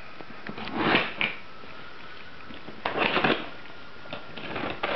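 Cardboard box being handled and its packing tape slit with a snap-off utility knife. There are short rustling scrapes about one and three seconds in, then a longer cutting rasp that starts near the end.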